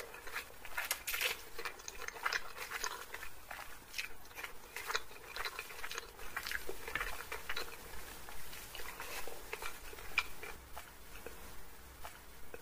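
A person chewing a mouthful of chowmein noodles and chilli chicken, heard up close as a quick, irregular run of small mouth clicks and smacks.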